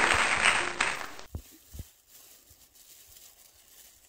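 A small group of people clapping, stopping a little over a second in, followed by two soft thumps and a faint hush.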